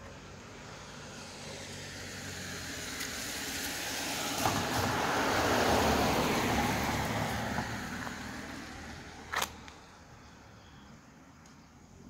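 Rushing noise of a passing vehicle that swells to a peak about halfway through and then fades away, with a short sharp squeak or click about nine seconds in.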